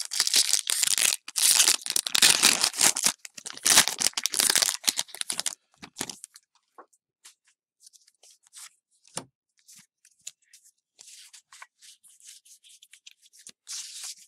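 A Pokémon trading-card booster pack's foil wrapper being torn open and crinkled in the hands, loud and crackly for about the first five seconds. After that come faint, scattered rustles and flicks as the cards inside are handled, with a short louder rustle of the card stack near the end.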